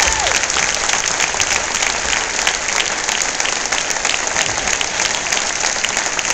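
Large crowd applauding, a steady patter of many hands clapping.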